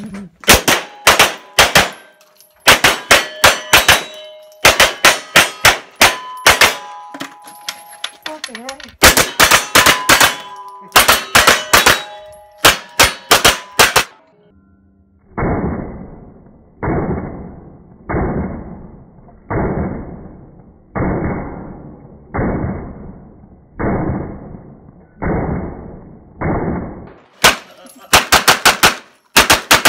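Strings of rapid gunshots from a handgun, with steel targets ringing after the hits. In the middle comes a stretch of nine drawn-out, muffled shots evenly spaced about 1.4 seconds apart, gunfire played back slowed down. Near the end there is a fast string of shots from a Sig Sauer MPX 9mm carbine.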